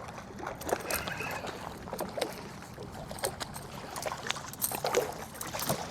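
Water splashing with scattered clicks and knocks at a small fishing boat as a hooked redfish is brought alongside.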